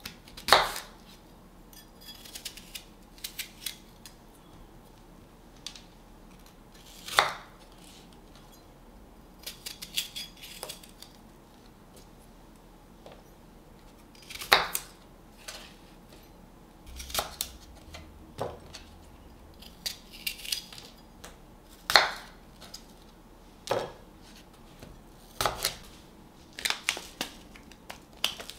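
Kitchen knife cutting an apple on a wooden cutting board: quiet slicing and crunching, with sharp knocks of the blade on the board every several seconds.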